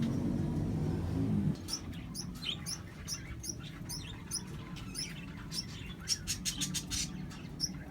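Small birds chirping: short, high chirps repeated about twice a second, coming in a faster run near the end. A low steady hum stops abruptly about a second and a half in.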